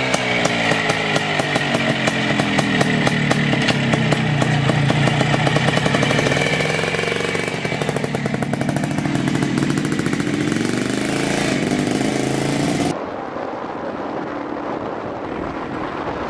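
Small two-stroke motorcycle engine being revved hard, its pitch rising and falling repeatedly, the exhaust smoking blue. About 13 seconds in the sound cuts to a quieter, duller engine note as the bike is ridden.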